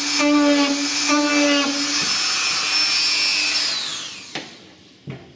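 Small handheld rotary tool with a tube bit running at high speed while scale rivet rings are pressed into a model's panel. Its steady note breaks briefly about every half second as each rivet is made. Near the end it is switched off and winds down with a falling whine, followed by a click and a soft knock.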